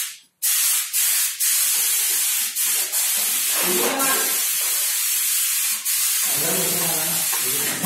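Compressed-air spray gun hissing loudly as it sprays wood polish, in long blasts broken by brief pauses on the trigger. A low hum comes in near the end.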